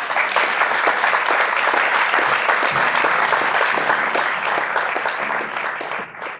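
Audience clapping after the end of a song, dense and steady, then thinning out and dying away near the end.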